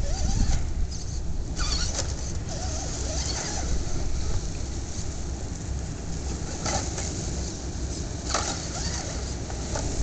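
Wind rumbling on the microphone by the water, with short whirring spurts from an RC scale rock crawler's electric motor and gearbox as it inches over rock, about four times.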